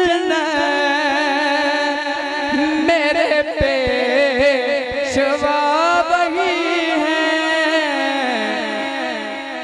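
A man singing a naat into a microphone, drawing out one long melismatic phrase on held, wavering notes that glide up and down, then fading away near the end.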